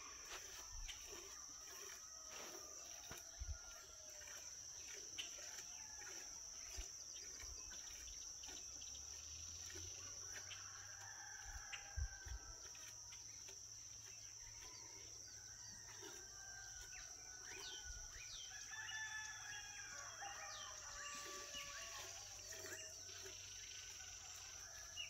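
Rural outdoor ambience: a steady high insect drone, with birds calling on and off, busier in the second half. A couple of soft knocks, the loudest about halfway through.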